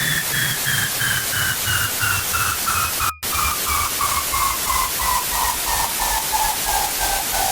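Harsh electronic noise: loud static hiss with a pulsing synthesized tone, about five beeps a second, slowly falling in pitch, and a thin whistle gliding down above it. The sound cuts out for a split second about three seconds in.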